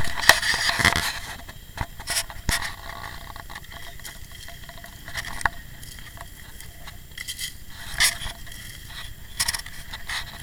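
Camera handling noise: scrapes, crackles and knocks on the microphone, loudest and densest in the first second, then scattered single knocks.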